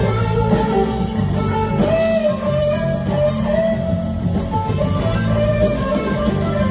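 Live band playing, led by an electric slide guitar solo of long notes that bend and glide in pitch, over drums and bass.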